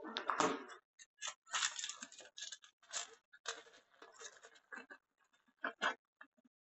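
Clear zip-lock plastic bag crinkling and rustling in irregular bursts as gloved hands open it and take out a small lens.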